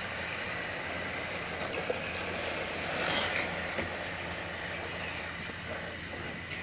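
Battery-powered TrackMaster toy engine running along plastic track: a steady motor whir with the rattle of its wheels, swelling slightly about three seconds in.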